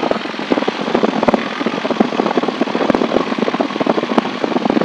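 Cessna 172's piston engine running at low taxi power, heard inside the cabin as a steady drone with a rapid, uneven crackle.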